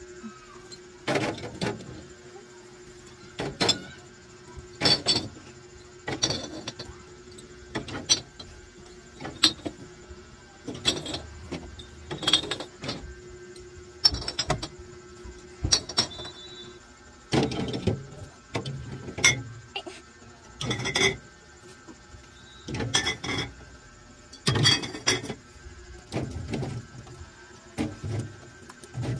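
Glass bottles and plastic soda bottles being laid one after another onto a refrigerator's wire shelves, clinking against the wire and against each other about once a second. A steady hum runs underneath and stops about halfway through.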